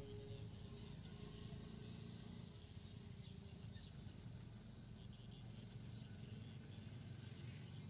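Faint steady low rumble in a gap in the background guitar music, which fades out at the start and comes back at the very end.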